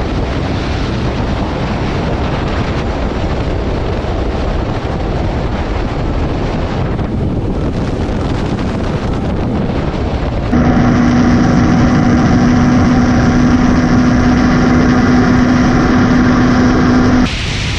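Motorcycle riding at speed with wind rushing over the microphone. About ten seconds in it switches abruptly to a louder, steady engine drone with a strong even-pitched hum, which cuts off suddenly shortly before the end.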